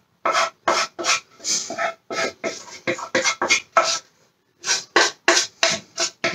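A utensil scraping honeycake batter out of a large non-stick saucepan into loaf tins, in quick repeated strokes about three a second, with a short pause a little past the middle.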